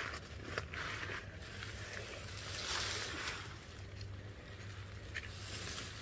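Dry, frost-killed sweet potato vines and leaves rustling and crackling as they are handled and pulled by hand, with a few small snaps; the rustling swells loudest about halfway through.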